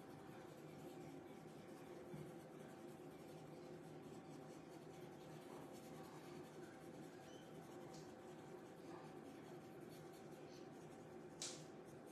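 Faint scratching of a pastel pencil on Pastelmat paper, laid on in light, small circular strokes, over a steady low hum. A single sharp click near the end.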